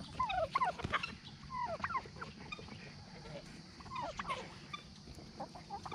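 Domestic turkeys calling close by with a scatter of short, high, falling chirps, several in quick runs.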